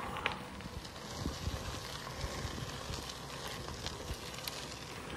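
Bicycle tyres rolling over a gravel rail trail: a steady crackling hiss with scattered small ticks from loose stones.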